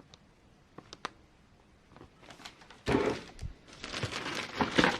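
A few faint clicks, then from about two seconds in, plastic packaging crinkling and rustling as kit parts are handled, with a knock near three seconds.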